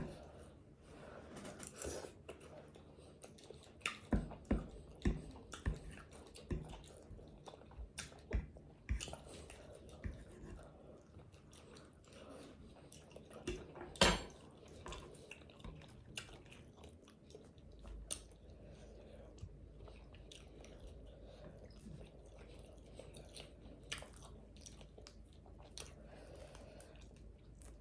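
Close-miked chewing and biting on fried chicken wings. Wet mouth sounds with sharp crunches, a quick run of them from about four to nine seconds in and a single loud one about halfway.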